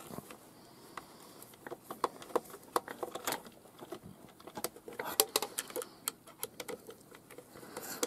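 Irregular light clicks and scrapes of a small screwdriver and fingers working against the plastic battery compartment of a transistor radio, undoing a screw set deep inside the case.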